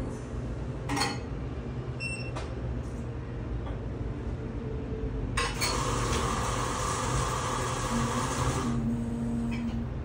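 Dishes and cups clinking with a few light knocks, then a steady rushing hiss for about three seconds that starts and stops sharply.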